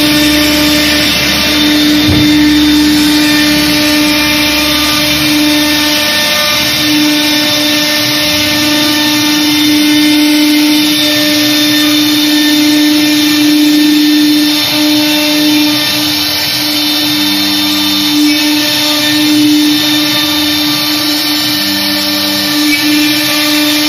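CNC router spindle running at speed while its bit routes grooves into a wooden door panel: a steady, loud whine with the hiss of the bit cutting.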